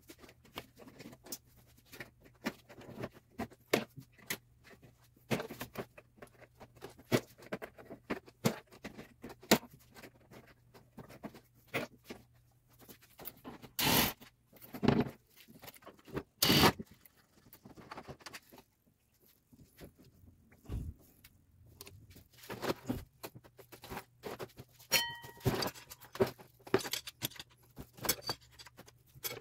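Scattered metal clicks, clinks and scrapes of hand tools and loose metal and plastic parts as the engine's guards and fan shroud are taken off, with two short rasping bursts past the middle and a brief ringing metal clink later on.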